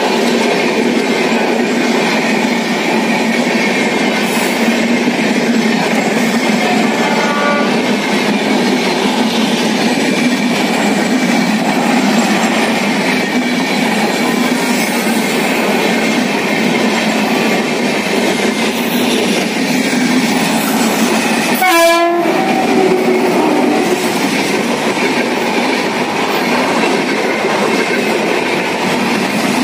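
Coaches of an Indian Railways express train rolling past close by, a steady rushing roar of wheels on rail. About three-quarters of the way through, a short train horn blast sounds over it.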